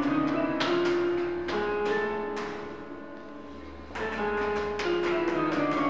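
Musical staircase playing a piano note for each step trodden on: a quick run of notes rising in pitch as the stairs are climbed, then after a short lull about four seconds in, notes stepping down in pitch as they are descended.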